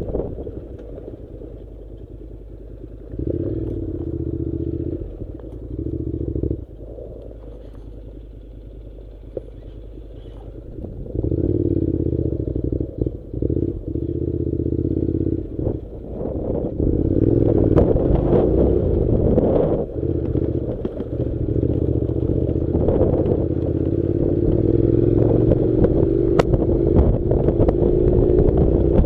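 Honda NC700 motorcycle's parallel-twin engine riding on a dirt track. It is mostly off the throttle for the first ten seconds, with two short pulls, then pulls steadily from about eleven seconds in, its pitch slowly rising near the end. Scattered knocks and clatter come from the bike going over rough ground.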